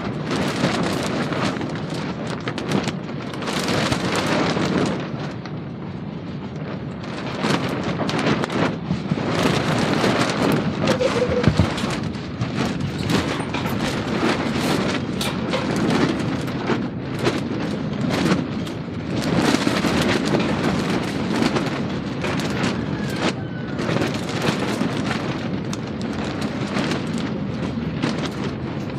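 Sounds of battle: a steady deep rumble of explosions with frequent sharp cracks of gunfire, swelling and easing in waves.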